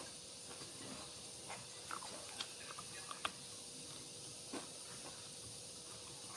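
A person chewing food close to the microphone, with wet mouth smacks and a few sharp clicks, over a steady hiss.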